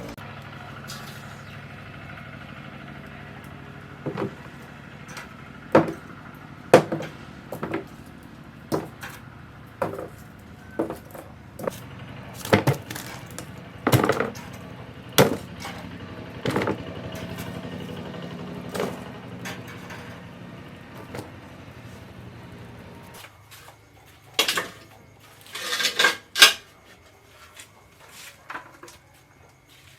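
Chopping on a wooden cutting board: sharp, irregular strikes about once a second over a steady low hum. Near the end the hum drops away and a few louder clattering knocks follow.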